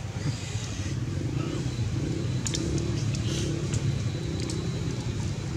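A motor vehicle engine running steadily, a low rumble throughout, with a few faint sharp clicks over it.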